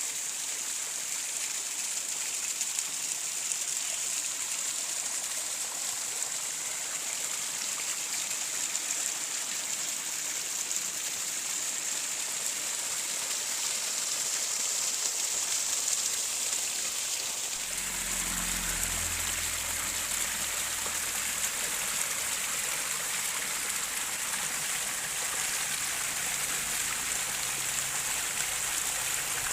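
Steady hiss of running water. About two-thirds of the way in, it switches abruptly to a different water sound with more low rumble.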